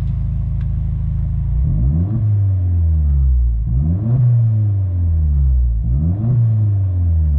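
Opel Corsa OPC's turbocharged 1.6-litre four-cylinder running through a handmade exhaust with the silencer deleted. It drones steadily, then is revved about every two seconds, the revs climbing quickly and falling back slowly, four times. The sound is brutal.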